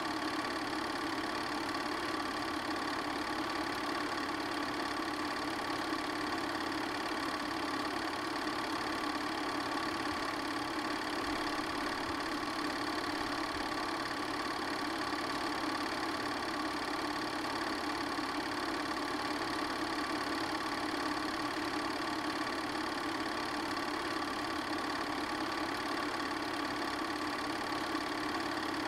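Steady mechanical running of an 8mm film projector, an even whirr and clatter at a constant level with no change.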